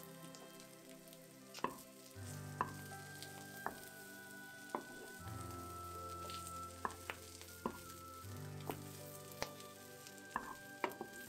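Chopped cabbage, tofu and carrots sizzling gently as they fry in a pan, stirred with a wooden spoon that knocks against the pan about every second.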